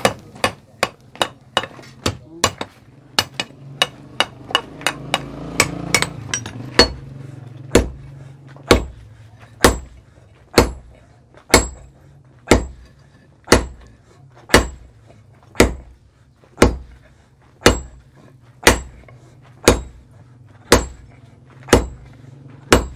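Hand hammer striking red-hot iron, a pickaxe head being forged on a post anvil. The blows come quickly and unevenly, about three a second, for the first several seconds, then settle into a steady stroke about once a second. A faint steady low hum runs underneath.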